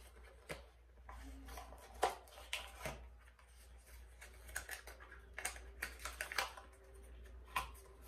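Scattered light clicks, taps and rustles of perfume bottles and cardboard perfume boxes being handled and set down, with a few sharper knocks, the loudest about two seconds in.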